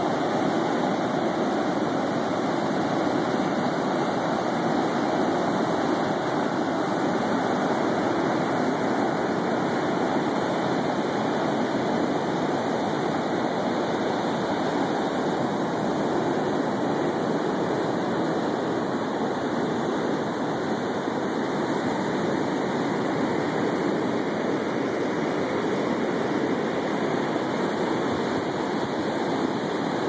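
Ocean surf breaking on a sandy beach, a steady rush of waves without pauses.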